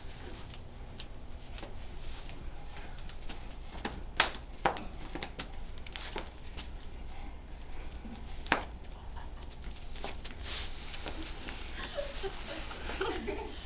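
Classroom room sound: a steady low hum with scattered knocks and shuffling as people move about and drop on the carpeted floor. The sharpest knock comes about four seconds in, and faint voices come in near the end.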